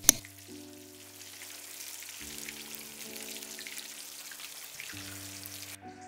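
Food frying in hot oil, a steady crackling sizzle that cuts off suddenly near the end, over soft background music with held chords. A single sharp hit sounds right at the start.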